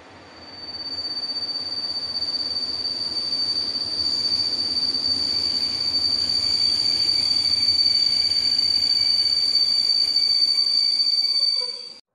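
EP07 electric locomotive and its passenger coaches arriving at a platform and braking, with a loud, steady, high-pitched wheel and brake squeal over the rumble of the train. It grows louder as the train draws near and cuts off suddenly near the end.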